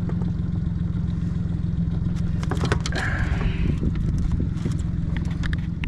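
Boat motor running steadily at trolling speed, with a few short clicks and knocks of handling in the boat about two and a half to three seconds in.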